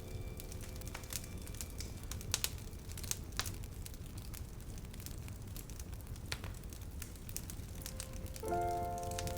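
Faint scattered small clicks and crackles, irregular and about one a second, over a low steady hum. Music with held notes comes in near the end.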